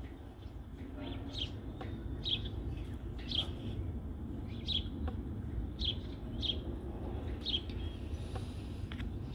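A small bird chirping over and over, short high chirps about once a second, over a low steady background rumble.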